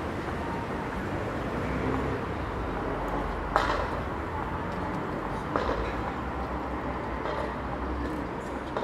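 Steady city street traffic noise, a low rumble of passing vehicles, with two short sharp clicks about three and a half and five and a half seconds in.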